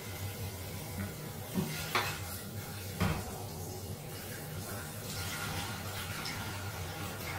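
Plates and dishes clinking lightly a few times as food is picked from them by hand, the clearest knocks about two and three seconds in, over a steady low hum.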